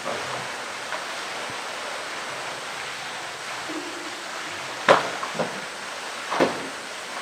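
Polar bear pushing and mouthing a blue plastic drum on wet concrete: hollow knocks against it in the second half, the first the loudest, over a steady rush of water.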